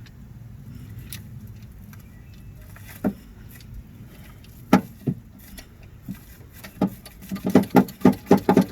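Metallic clicks of a hand crimping tool being set on a copper lug on heavy welding cable: a few scattered clicks, then a quick run of about four or five clicks a second near the end as the crimp starts.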